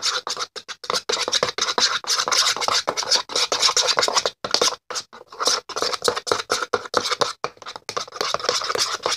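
Glue, food coloring and face wash being stirred in a bowl for slime: a utensil scraping around the bowl in quick, uneven strokes, loud and close.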